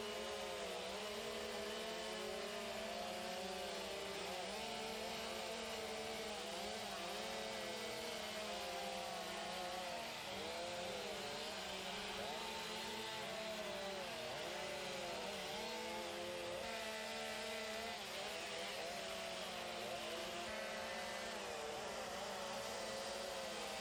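Several chainsaws running at once, their overlapping engine pitches rising and falling as the carvers throttle up and down while cutting into logs.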